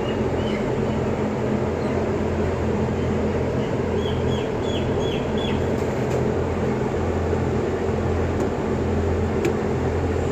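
Steady low hum and drone of the closed-house barn's running ventilation blowers and live electrical panel. About four seconds in, chickens give a quick run of about five short calls.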